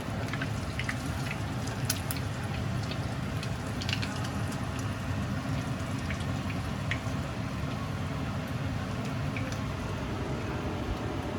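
A sandwich frying in hot oil and butter in a pan, sizzling steadily with scattered small pops and crackles that are most frequent in the first few seconds, over the steady low hum of the stove's exhaust fan.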